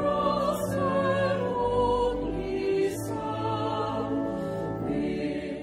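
Choir singing a hymn over steady low accompaniment, with long held notes and vibrato.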